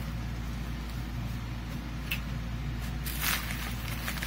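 Bubble wrap rustling and crinkling as hands handle wrapped computer parts, with a short click about two seconds in and a louder crinkle about three seconds in, over a steady low hum.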